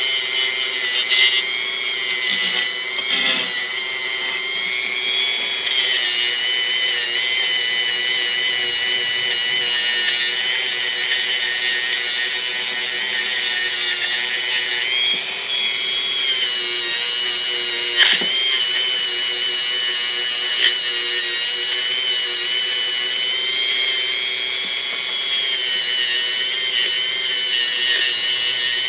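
A small high-speed power tool running continuously with a high-pitched whine that wavers slightly in pitch as it is loaded, as in cleaning rust off steel pliers. A sharp click comes about two-thirds of the way through.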